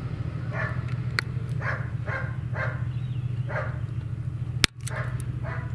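A dog barking, about seven short barks at uneven intervals, over a steady low hum, with a couple of sharp clicks.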